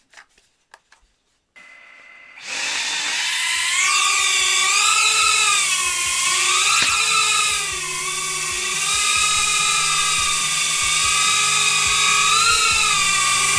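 BetaFPV Cetus Pro tiny whoop FPV drone lifting off about two seconds in, its brushless motors and propellers rising to a loud, high whine. The pitch then wavers up and down as the drone hovers.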